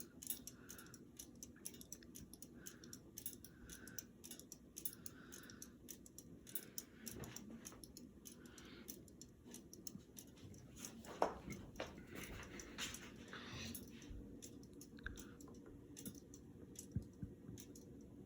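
Ceiling fan giving faint, irregular clicks and ticks over a low steady hum.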